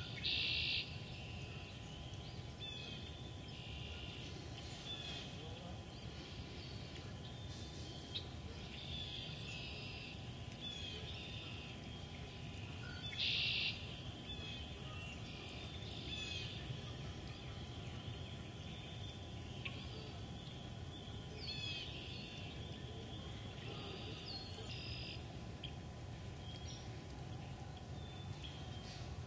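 A continuous wetland chorus of many short, high-pitched calls and chirps, with two louder, longer calls, one right at the start and one about 13 seconds in.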